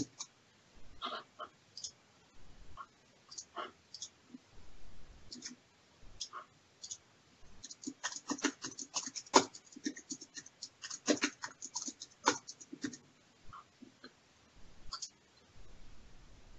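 Computer keyboard typing: scattered keystrokes at first, then dense runs of fast keystrokes through the middle, thinning out again near the end.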